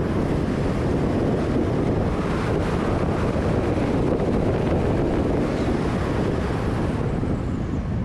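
Steady wind rushing over the microphone of an action camera on a moving motorcycle, with the bike's running and road noise beneath it.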